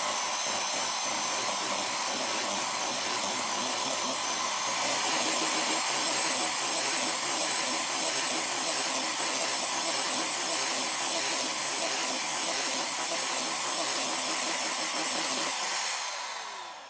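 Kenwood electric hand mixer running steadily, its beaters whisking soft cheese and sugar in a stainless steel bowl. Its whine steps up slightly about five seconds in, and near the end the motor winds down and stops.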